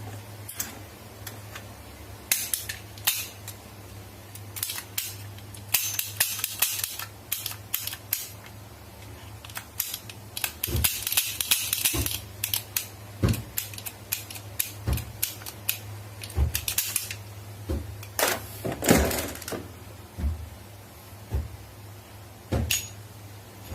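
Plastic toy guns being handled and worked: irregular sharp clicks and snaps, now and then in quick rattling clusters, over a steady low hum.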